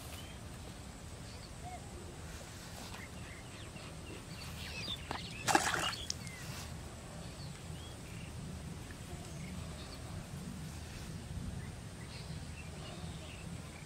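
Outdoor countryside ambience: scattered short bird chirps over a low, steady rumble of wind. About five and a half seconds in comes one brief, loud burst of noise.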